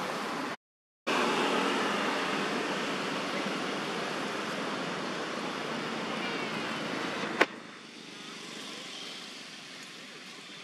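Steady outdoor background noise with no clear single source, cut by a brief dropout about half a second in; a sharp click about seven seconds in, after which the noise is quieter.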